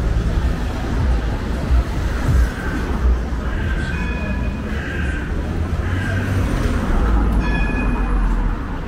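A rail vehicle passing close by: a steady low rumble, with thin high tones coming and going in the second half.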